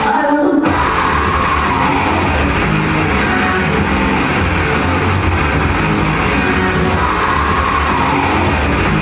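Loud rock music with electric guitar. The bass drops out briefly at the start and kicks back in about half a second in.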